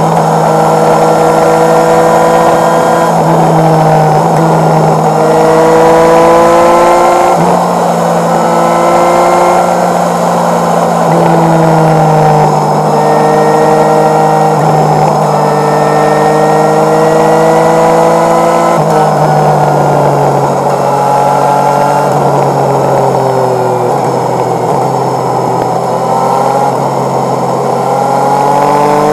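Motorcycle engine pulling through the gears. Its pitch climbs, then drops sharply at each gear change several times over, with a steady rush of wind underneath.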